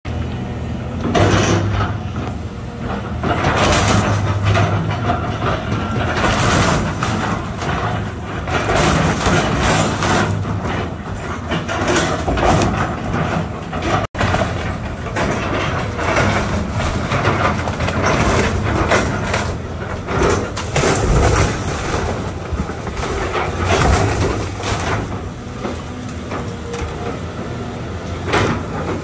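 Excavator with a demolition grapple tearing apart a wood-frame house: its diesel engine runs steadily under an irregular clatter of cracking, splintering timber and crashing debris. Sound cuts out for an instant about halfway.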